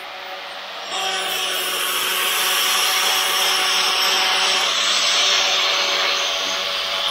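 Electric angle grinder with an abrasive disc running. About a second in, the disc is pressed onto a stainless steel spoon-lure blank held in a vise, and a steady grinding hiss rises over the motor's hum.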